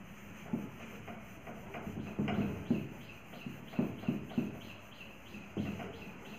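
Whiteboard duster rubbing across the board in repeated back-and-forth strokes as the board is wiped clean, each stroke a short scrubbing swish.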